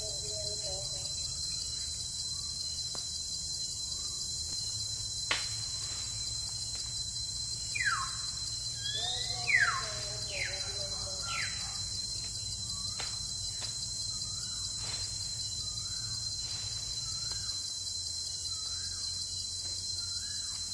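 Steady high-pitched insect drone of a bamboo forest, with bird calls over it: a few sharp descending whistles about halfway through, then short repeated chirps.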